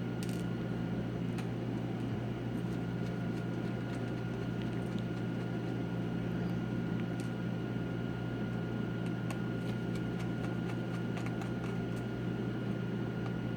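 A steady low hum with a faint high tone, with faint scattered clicks of a small screwdriver turning tiny screws out of a laptop's LCD screen.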